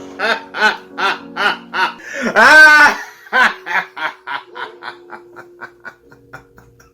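A person laughing in a rapid run of short "ha" sounds, with a loud drawn-out high squeal about two and a half seconds in. The laugh then trails off into fainter, quicker bursts.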